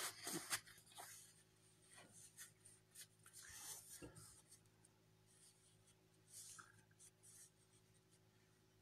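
Faint rustling and light taps of paper being handled on a desk, in scattered short bursts, over a low steady hum.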